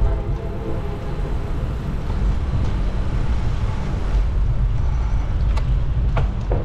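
Steady low rumble of city street traffic mixed with wind on the microphone of a moving bicycle, with a few sharp clicks near the end.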